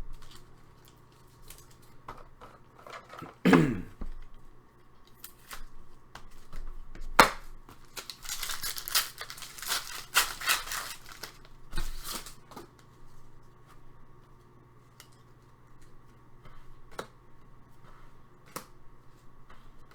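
A foil trading-card pack being torn or cut open and the cards handled, with crinkling of the wrapper and scattered small clicks. The crinkling is densest about halfway through.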